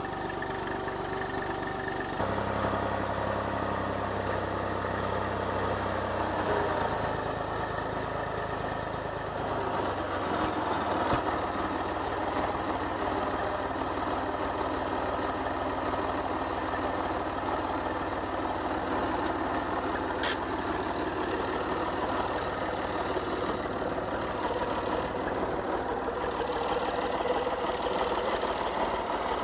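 Tractor engine running as the tractor drives across the paddock, its note stepping up about two seconds in and changing again about ten seconds in.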